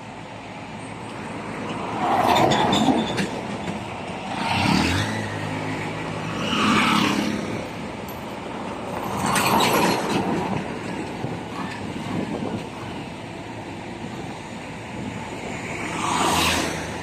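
Heavy vehicle engines running, with five swells of louder noise over the low drone, each lasting about a second.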